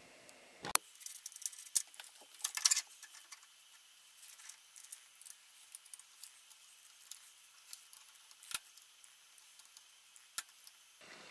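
Clicks, clinks and light metallic rattling from handling a Makita compact router as it is fitted into the CNC router's black mount and its clamp is tightened. A few sharp knocks and rattles come in the first three seconds, then only sparse light ticks.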